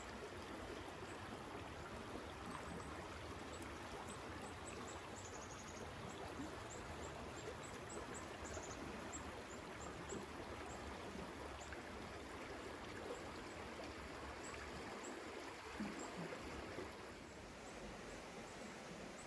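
A stream running: a steady rush of water, with short, high, thin chirps scattered through the first half. The water sound eases off a little near the end.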